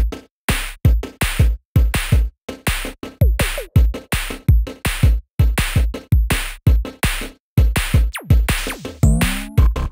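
Electronic background music with a steady, quick drum-machine beat and a few sliding synth tones.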